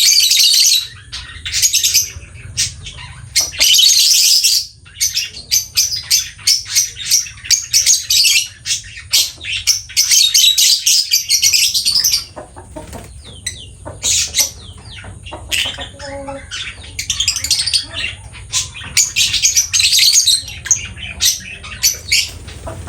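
Lovebird chirping and chattering in rapid, high-pitched bursts, with a quieter, sparser spell about twelve to seventeen seconds in.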